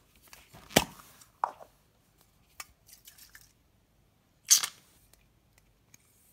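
A sharp click or knock from handling an aerosol can of shaving cream, a few smaller clicks, then about four and a half seconds in a short hissing squirt as foam is dispensed from the can.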